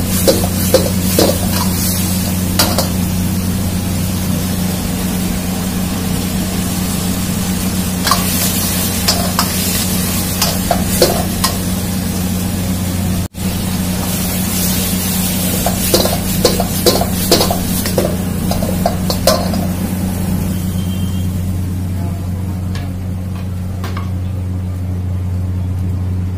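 Metal ladle stirring and tossing sauced chicken momos in an iron wok over a gas burner: sizzling, with clusters of sharp clanks and scrapes of the ladle against the wok, several times through. A steady low hum runs beneath.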